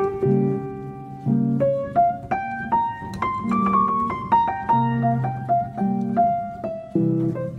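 Piano music: a melody of single struck notes over low sustained chords.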